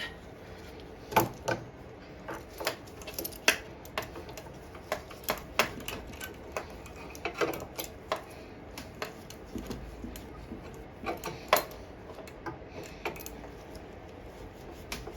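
Irregular light clicks and taps of small metal parts and tools being handled while the fuel line is refitted to the mower's carburettor.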